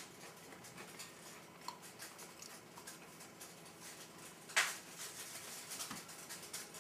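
Faint small crackles and ticks, with one sharp click about four and a half seconds in: a coffee-dunked oatmeal block biscuit being handled and eaten.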